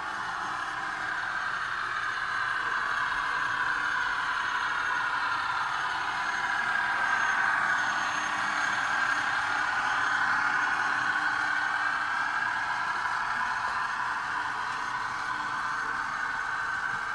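Union Pacific model diesel locomotive climbing a layout helix, a steady engine-like running sound with motor and wheel hum, swelling a little as it passes closest about halfway through and then easing off.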